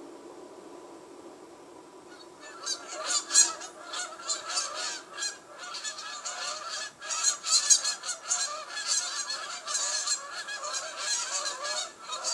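A flock of greylag geese honking, many calls overlapping, starting about two seconds in after a faint low hiss.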